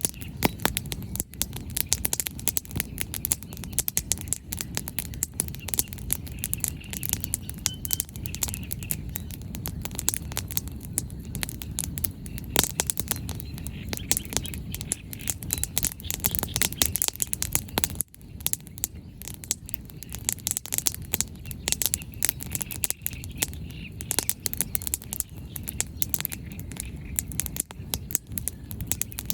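Wood fire crackling, with dense irregular pops and snaps of burning firewood over a steady low rush.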